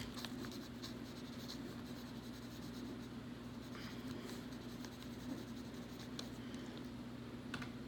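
Faint scratching of a pen writing on paper, with a few light ticks, over a steady low hum.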